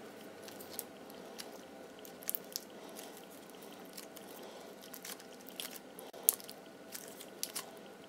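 Red candy cane thinking putty being stretched and squeezed by hand, giving faint sticky crackles and small sharp pops, with a few louder snaps scattered through.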